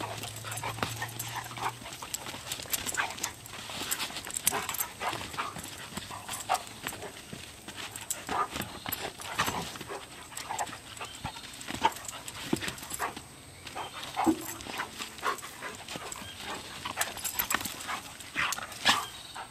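Two dogs play-wrestling: a busy, irregular run of scuffles, paw thumps and jaw clacks mixed with short dog growls and yips, cutting off abruptly at the end.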